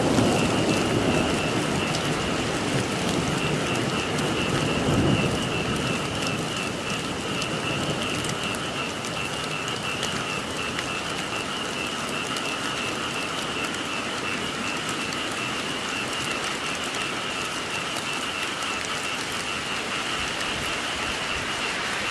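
Steady rainfall with a continuous pulsing chorus of frogs calling. A low rumble of thunder in the first five seconds or so fades away.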